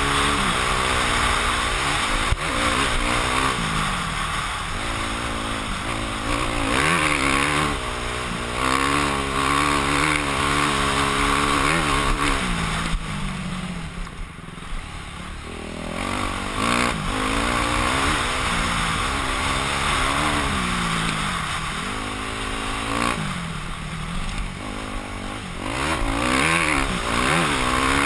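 Yamaha YZ250F dirt bike's 250 cc four-stroke single-cylinder engine, heard from a helmet camera, revving up and falling back again and again as the rider works the throttle and gears. The engine eases off about halfway through, then picks up again.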